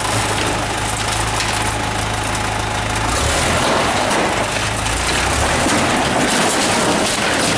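Case 580 backhoe's diesel engine running, its pitch shifting a couple of times as the machine is worked, over a dense rushing noise.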